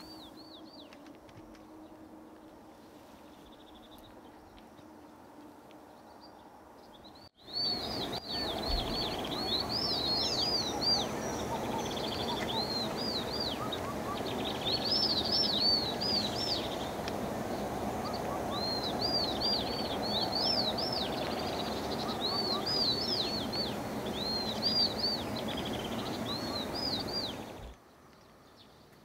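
Small birds chirping over and over in short, quick, arched calls above a steady outdoor background haze. The chirping starts suddenly about seven seconds in, after a faint, quiet stretch, and stops sharply near the end.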